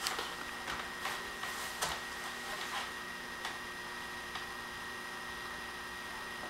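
A few faint knocks and rustles in the first few seconds as a toddler climbs up to stand on a wooden kitchen chair, over a steady faint hum with a thin high whine.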